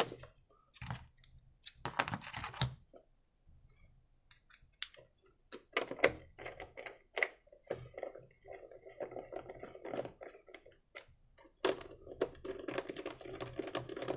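A screwdriver drives in the screw of a small petrol generator's plastic air filter cover. First come scattered clicks and knocks of handling, then a fast rasping clicking from about eight seconds in as the screw is turned.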